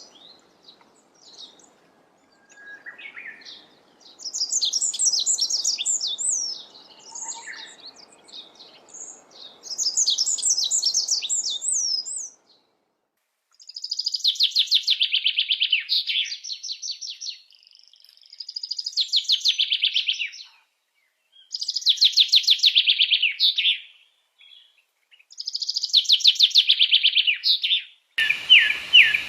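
Songbirds singing: first a bird giving high, quick chirping phrases, then a different bird repeating a fast trilled song phrase of about three seconds, five times with short pauses between.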